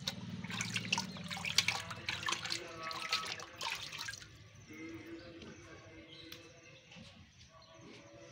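Water splashing and dripping in a tub as small fruits are washed by hand; the splashing stops about four seconds in, leaving only faint background sound.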